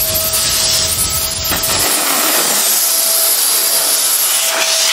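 Vacuum cleaner running steadily, sucking air through a corrugated plastic conduit to pull a bag-tipped string through it, with a faint steady whine; its low rumble cuts out about two seconds in.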